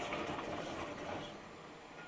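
Road noise of a car driving on wet pavement, heard from inside the cabin as a steady rushing hiss that fades somewhat over the second half.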